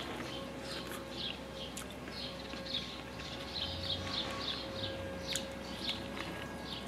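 Small birds chirping in the background, short high chirps repeating a few times a second, over a faint steady hum.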